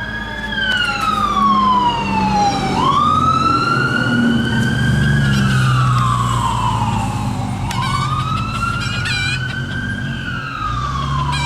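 Fire truck siren wailing: a pitch that climbs quickly, then slides slowly down, repeating about three times, over a steady low rumble.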